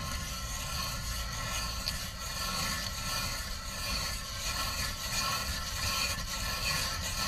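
Ice auger boring through pond ice: a steady grinding scrape as the spiral blade cuts and throws up ice chips.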